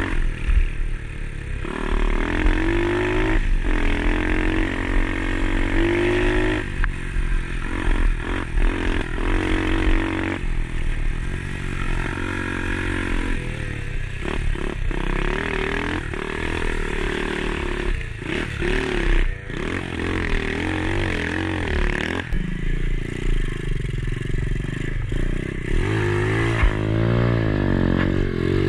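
Pit bike engine revving up and falling back again and again as it is ridden over a bumpy dirt trail, with clattering knocks from the bike over rough ground.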